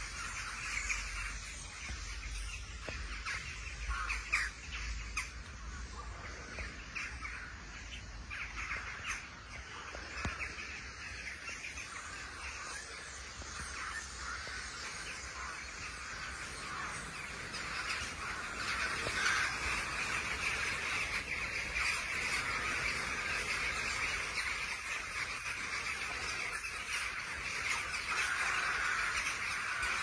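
A large flock of corvids calling together: a dense, continuous mass of overlapping caws that grows louder about halfway through.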